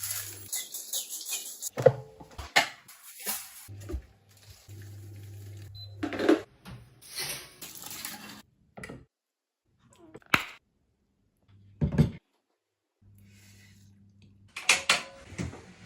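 Intermittent knocks and clinks of dishes and household items being handled, broken by short stretches of near silence.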